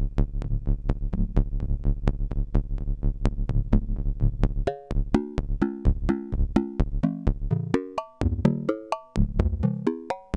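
Buchla modular synthesizer playing a rapid string of short notes fired by a pulse train, with the notes catching several triggers as the control voltage rises. About halfway through, the notes spread out and step up and down between pitches.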